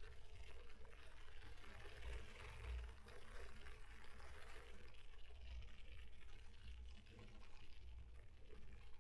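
Riding noise of an electric mountain bike: tyres rolling on the road with a steady hiss, under a low wind rumble on the frame-mounted camera's microphone that swells and fades.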